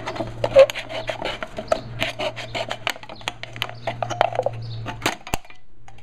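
A knife blade sawing through the thin aluminium wall of a soda can near its top, a dense run of crackling, scraping ticks that stops sharply about five seconds in.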